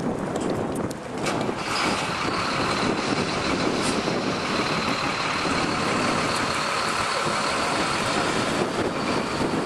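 Street traffic: cars and trucks driving past, with a steady high whine that joins about two seconds in.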